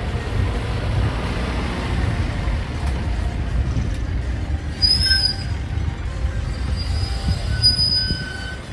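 Low diesel-engine rumble of a flatbed car-carrier truck pulling out slowly, with two short high-pitched squeals, one about five seconds in and one near the end.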